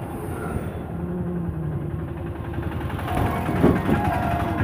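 Road traffic: small motorcycle and three-wheeler engines running on the road, growing louder from about three seconds in as a vehicle comes closer.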